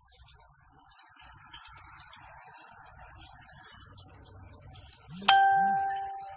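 Chicken cutlets sizzling steadily in frying oil, with a soft rubbing as a cutlet is pressed into its flour coating. About five seconds in, a utensil strikes a dish with a sharp clink that rings on for about a second.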